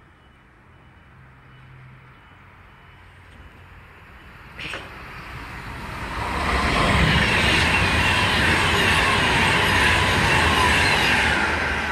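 A Virgin Class 390 Pendolino express passing through the station at speed without stopping: a rush of wheel and rail noise that builds over the first half and is loudest for the last five seconds as the carriages go by. There is a sharp click about four and a half seconds in.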